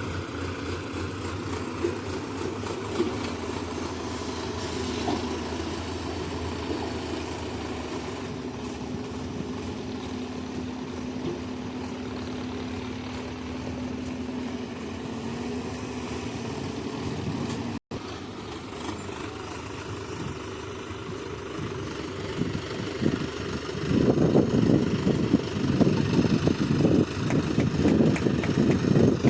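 Diesel engine of heavy earthmoving machinery running steadily. There is an abrupt cut past the middle. In the last few seconds it gets louder and rougher, with a fast rattling pulse.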